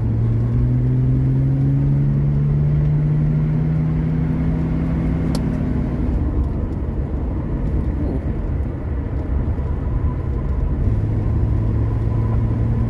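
1981 Mercury Capri's 200 cubic-inch inline-six, heard from inside the cabin, pulling up to speed with road and wind noise underneath. The engine note rises for about six seconds, then eases off, and near the end settles into a steady drone.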